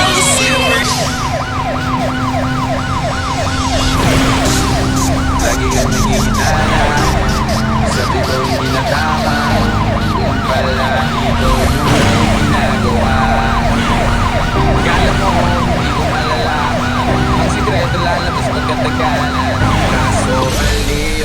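Music with a fast, repeating siren-like wail over held tones, a steady low bass note and a drum beat.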